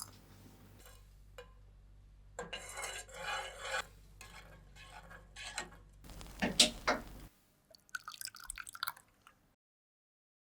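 Kitchen utensil sounds: a spoon stirring and scraping in a pot or bowl, with sharp clinks of metal against dishware, then a quick run of small clinks near the end.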